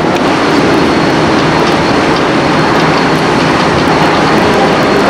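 Steady, loud rushing and rumbling noise on the deck of a ship under way, with no distinct events.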